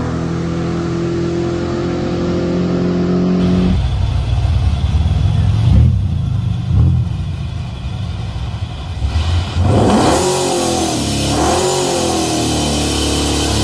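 Square-body Chevy pickup's ProCharger-supercharged engine at full throttle running down the drag strip, holding a steady pitch. About four seconds in it gives way to the engine's low rumble close by at the starting line, with revs rising and falling twice about ten and eleven seconds in.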